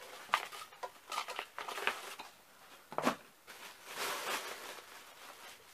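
Plastic and cardboard packaging being handled and pulled apart: scattered rustling and clicks, a sharper knock about three seconds in, then a longer crinkling rustle.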